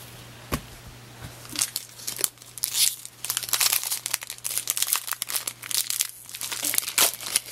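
Foil wrapper of a 2002 Bowman baseball card pack being crinkled and torn open by hand, starting about two seconds in.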